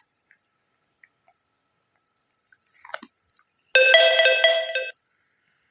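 A short electronic chime: a ringtone-like chord of several steady tones with a fast pulse, lasting about a second, starting almost four seconds in, and by far the loudest sound here. Before it, faint clicks and a short crunch from the dog chewing a hard churpi stick.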